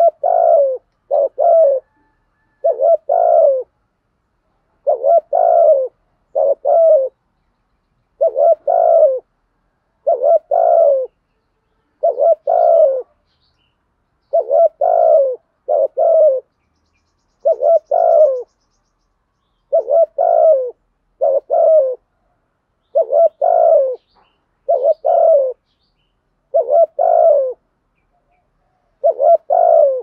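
A caged decoy spotted dove cooing: short groups of two or three low, throaty coos, repeated about every two seconds. This is the lure call used to draw wild doves.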